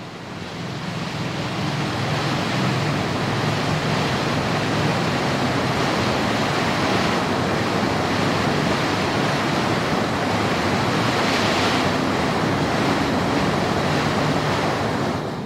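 White water rushing over a rocky cascade, a steady, continuous hiss. It swells in over the first couple of seconds and cuts off abruptly at the end.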